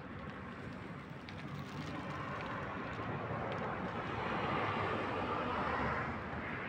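Street traffic noise, a vehicle passing: a steady rushing sound that swells from about two seconds in, is loudest just past the middle, and eases off near the end.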